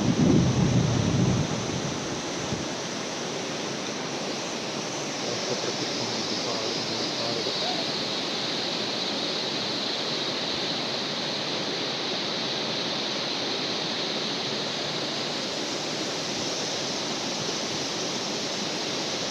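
Waterfall rushing steadily, an even, unbroken hiss of falling water. A loud low rumble covers the first second and a half.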